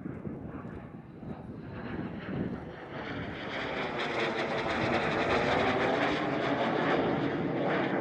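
PZL TS-11 Iskra jet trainers flying past, their jet engine noise growing louder over the first few seconds and staying loud through the second half, with a slowly shifting whooshing tone as they pass.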